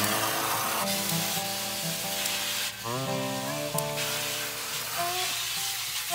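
Background music with a melody moving note to note, over the hiss of a garden hose spray nozzle jetting into a metal tub of water. The spray hiss drops back for about a second near the middle.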